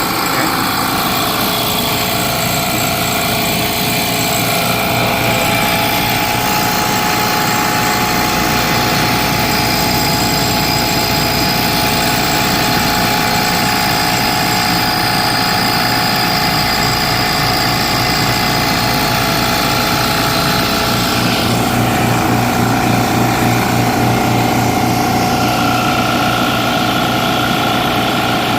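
JB F6 refrigerant recovery machine running steadily, its compressor and fan pulling refrigerant out of the system into the recovery cylinder. The steady hum changes slightly about three-quarters of the way through.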